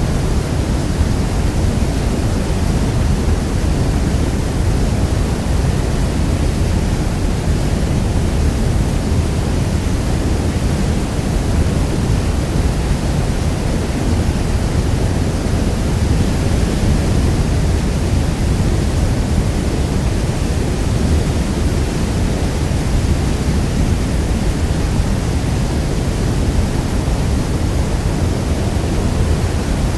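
Niagara Falls: a heavy waterfall giving a steady, deep rush of falling water that never changes.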